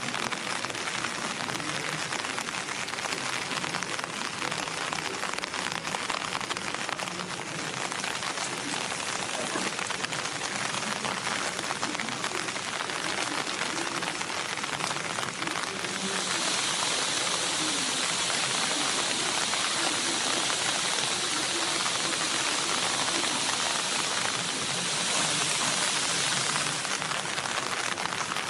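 Steady rain falling, a continuous even hiss. A little past halfway it turns brighter and slightly louder.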